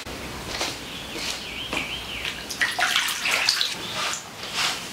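Water splashing and sloshing in a plastic baby bath tub, in a string of short splashes.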